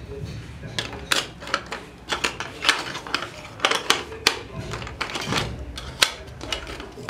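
Plastic puzzle chips of a Hide and Seek Safari board game clicking and clacking as they are picked up and pressed into the slots of the plastic board: about a dozen irregular sharp clicks.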